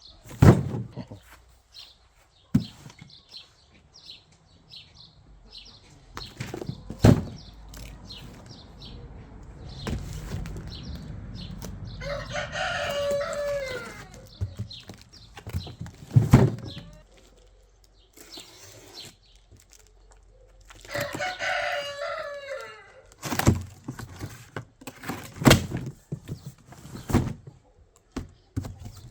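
A rooster crowing twice, each crow about two seconds long and falling in pitch at the end, among several sharp knocks and thumps.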